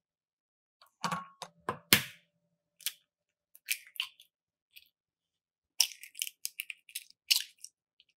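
Raw eggs knocked against a glass measuring cup and cracked open by hand: sharp knocks followed by the crackle of shells being pulled apart, in several rounds. The glass rings briefly after the loudest knock, about two seconds in.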